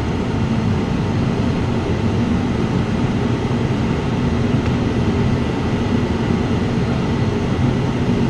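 A steady, low-pitched mechanical drone of a running machine, unchanging in level, with no separate knocks or clicks standing out.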